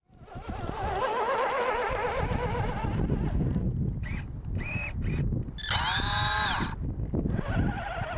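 Electric motor and gearbox of a 1/10-scale RC4WD Trail Finder 2 radio-controlled truck whining as it drives over gravel. The pitch wavers and climbs and falls with the throttle, rising sharply and dropping back once about six seconds in. Beneath the whine the tyres crackle over loose stones.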